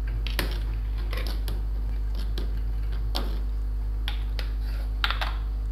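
Metal ladle clinking and scraping against the side of an aluminium pot while stirring porridge, about ten irregular knocks. A steady low hum runs underneath.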